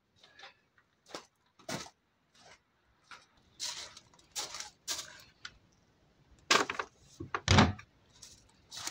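Footsteps crunching on gravel, then the plastic lid of a wheelie bin lifted and dropped shut, with the loudest knocks and a thud at about six and a half and seven and a half seconds in.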